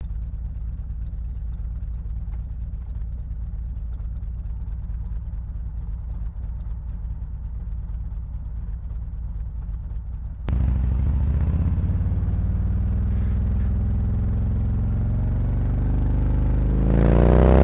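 Harley-Davidson Road Glide's V-twin running through SuperTrapp 4-inch FatShots slip-on mufflers with internal discs, idling with an uneven low rumble. About ten seconds in it suddenly gets louder, and the exhaust note climbs steadily as the revs rise.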